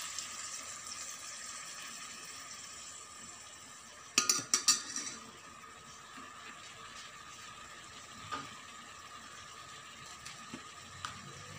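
Metal spoon clinking against an aluminium rice-cooker pot, several quick ringing clinks about four seconds in as it is worked through raw chicken, then a couple of lighter clicks later, over a faint steady hiss.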